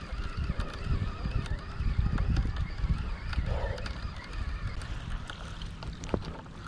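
Wind buffeting an action camera's microphone outdoors, a low rumble that rises and falls, with a few faint clicks.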